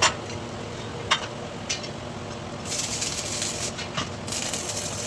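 Electric arc welding: a steady machine hum with a dense, hissing arc crackle for about a second and a half past the middle, and a few sharp metallic clicks.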